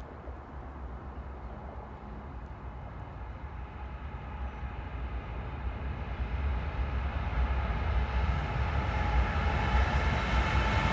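Approaching freight train led by diesel-electric locomotives: a low engine rumble and drone growing steadily louder as the train nears.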